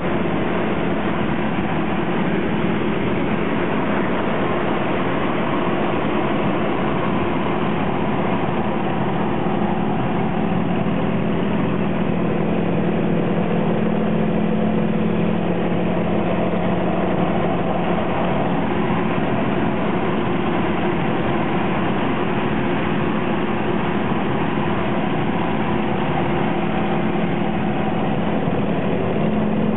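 Light propeller aircraft's piston engine running in flight, heard from inside the cockpit: a loud, steady drone mixed with wind rush, swelling slightly now and then.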